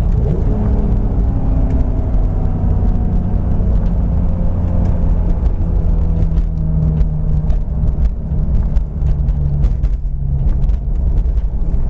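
Turbocharged 1999 BMW M Coupe's 3.2-litre S52 straight-six running steadily under way, with a deep rumble. The engine note eases slowly downward through the first half, as when coasting or running lightly on the throttle, not a hard pull.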